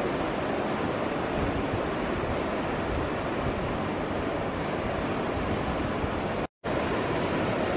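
Sea surf breaking and washing over coastal rocks: a steady, even rush of water. The sound cuts out completely for a moment about six and a half seconds in.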